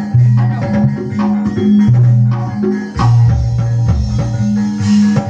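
Loud recorded instrumental music played through a vintage 1990s PA sound system with 15-inch woofers. Repeated percussive hits run over long, deep bass notes.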